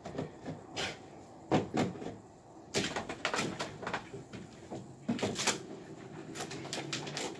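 Irregular knocks and clatters of objects being handled and set down, with bunches of quick taps about a second and a half in, near three seconds and after five seconds.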